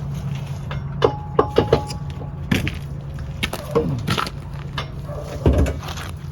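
A series of sharp knocks and clinks, some with a brief metallic ring, over a steady low hum.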